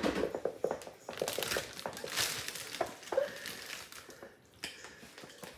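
Crinkling and rustling of a bag, loudest between about one and three seconds in, with a few light clicks and knocks, as a cup is scooped and partly emptied.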